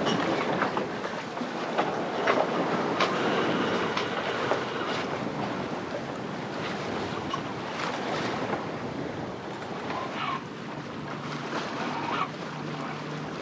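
Sea water rushing and splashing along the hull of a sailboat under way, with wind on the microphone.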